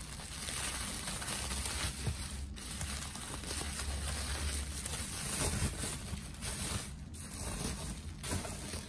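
Plastic bubble wrap crinkling and rustling as it is pulled off and lifted away from books in a cardboard box, with a couple of brief pauses.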